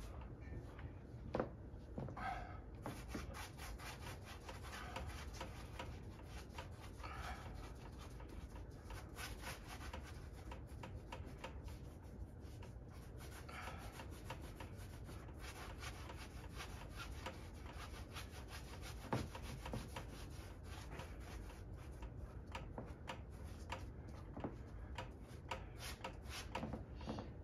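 Gloved hand rubbing and smearing acrylic paint across a stretched canvas: a continuous run of quick scuffing strokes, with an occasional soft knock.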